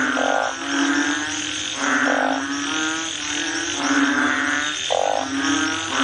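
Frogs croaking in a steady, repeating chorus, with a short buzzy trill every two to three seconds.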